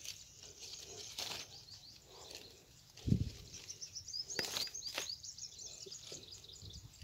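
Small birds chirping in quick runs of short, high calls, thickest around the middle. About three seconds in there is a dull low thump, the loudest sound, and a few sharp clicks are scattered through.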